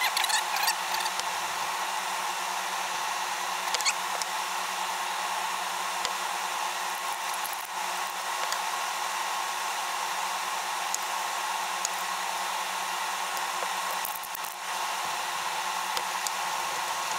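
Steady hum and blowing of a running air conditioner. Over it come a few light clicks and cloth rubbing as a pistol's slide and frame are wiped and handled.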